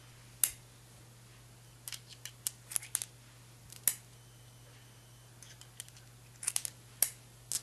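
Sharp metallic clicks from a Ruger Vaquero .357 Magnum single-action revolver as snap caps are slid into the chambers through the open loading gate and the cylinder is turned by hand, chamber by chamber. The clicks come singly and in quick little clusters, with gaps between.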